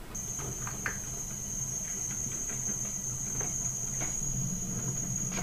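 Compressed air hissing with a steady high whistle through a leak-down tester as air pressure is fed into a cylinder. The whistle starts just after the beginning, with a low hum beneath and a few faint clicks.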